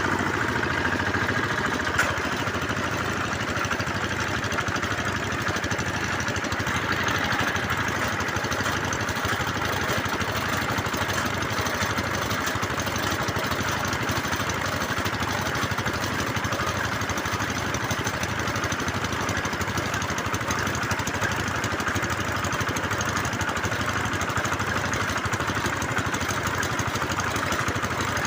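A small engine running steadily at an even speed, with a single sharp click about two seconds in.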